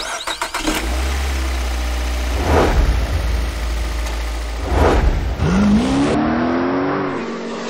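Car-engine-like sound effects: a deep steady rumble with two whooshes, then an engine rev that rises in pitch and holds from about five and a half seconds in.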